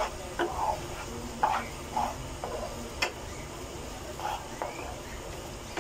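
A black plastic spatula stirring and scraping a thick, wet chicken and vegetable mixture in a nonstick frying pan, in short uneven strokes, with a sharp tap against the pan about three seconds in. The milk and cornflour sauce is being worked into the filling over low heat.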